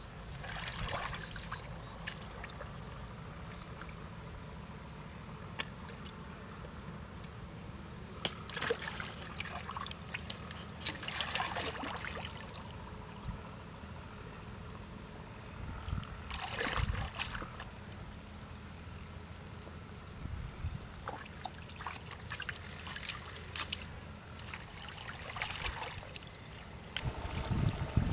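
Shallow muddy water sloshing and splashing in short bursts every few seconds as a person wades and digs by hand into a mud bank. A steady high-pitched insect buzz runs underneath.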